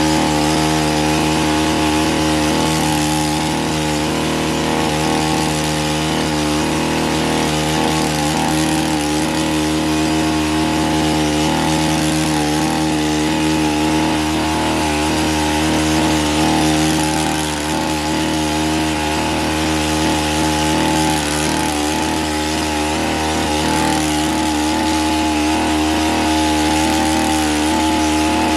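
A motorised hedge-cutting power tool running steadily at high speed, with a constant whine and no change in revs. The level dips briefly about two-thirds of the way through.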